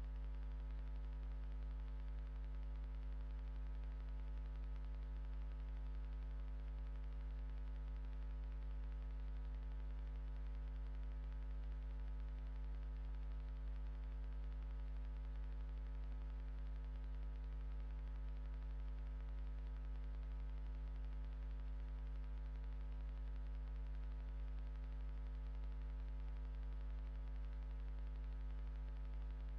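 Steady electrical mains hum, a low buzz with a row of higher overtones over faint hiss.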